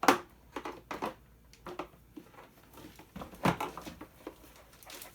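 Plastic toy parts and tools being handled during disassembly: a few separate knocks and clicks, the loudest right at the start and another strong one about three and a half seconds in.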